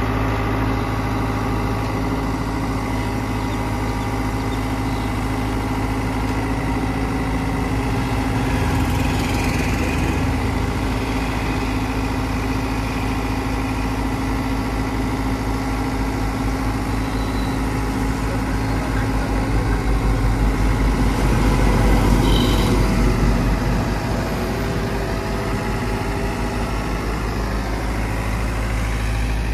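Hyundai crawler excavator's diesel engine running steadily while it drives its hydraulics to lower itself off a truck bed. The engine note swells louder with a deeper rumble for a few seconds about two-thirds of the way through as the machine works under load.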